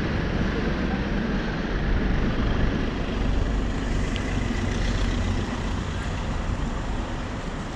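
Steady road and wind noise from riding along a street: a low rumble with a hiss over it, without a clear engine note.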